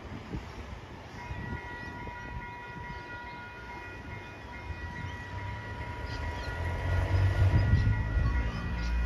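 Tram level crossing warning alarm starting about a second in, a steady high tone with several pitches together, while a tram approaches. A low rumble swells near the end.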